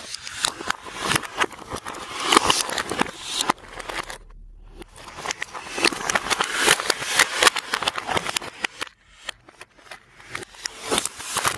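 Slime being mixed and squeezed by hand, a dense run of sticky clicks and crackles with a short pause about four seconds in.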